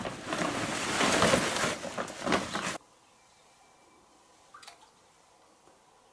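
Loud rustling and crinkling of a woven plastic bag being rummaged through by hand, cutting off suddenly a little under three seconds in; after that only faint outdoor background with a single light click a couple of seconds later.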